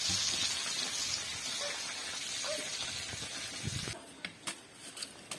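Chicken frying in hot oil: a steady sizzle that stops abruptly about four seconds in, followed by a few sharp clicks.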